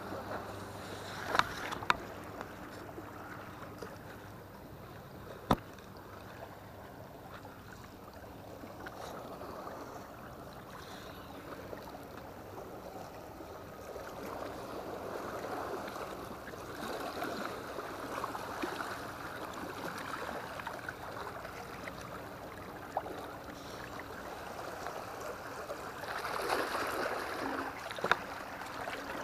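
Seawater lapping and sloshing against a concrete seawall and the blocks at its foot: a steady wash that swells and eases. A few sharp clicks stand out, two close together about a second and a half in and one near the end.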